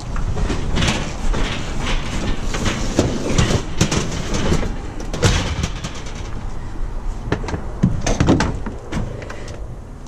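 A sheet-metal kitchen range being shoved and slid into a vehicle's cargo area: a busy run of scraping, knocks and rattles, thickest over the first six seconds, with another burst of knocks about eight seconds in.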